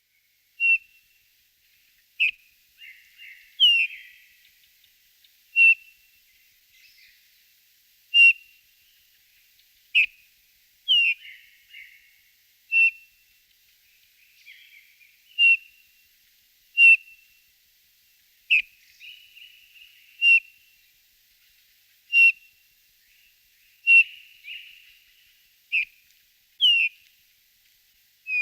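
Small birds calling: a short, sharp, whistled call repeated every second or two, with softer twittering between the calls.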